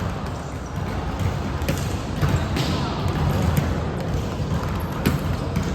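Volleyball being hit during play: a few sharp slaps of the ball, with a steady low rumble of the hall and players moving.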